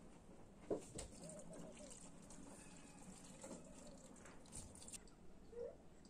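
Microfibre cloth wiped over wet, soapy window glass, faint. It gives a few short squeaks and soft rubbing clicks.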